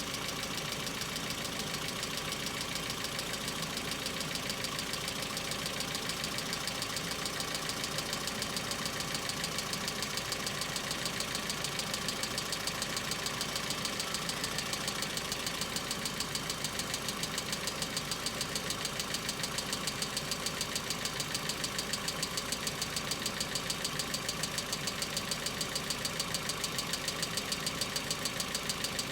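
Hyundai Accent engine idling cold with a rapid, even tapping from its hydraulic lash adjusters (lifters). The tapping grows more pronounced partway through, a sign of lifters not holding oil pressure on a cold engine.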